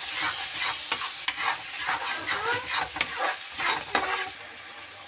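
Slotted steel spoon scraping and stirring onion-tomato masala as it fries in oil in a steel kadai, in quick repeated strokes, a few of them squeaking against the metal. The stirring stops about four seconds in, leaving a steady sizzle.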